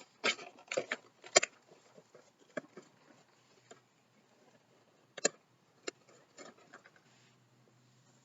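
A Pop vinyl figure's box and packaging being opened and handled as the figure is taken out: scattered sharp clicks and rustles. The sharpest comes about a second and a half in and another a little after five seconds, before the handling stops.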